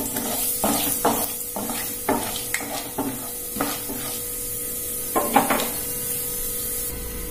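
Chana dal sizzling in oil in a non-stick pan, stirred with a wooden spatula in short scraping strokes about twice a second that stop about five and a half seconds in, leaving only the sizzle. The dal is being fried until it turns golden-red.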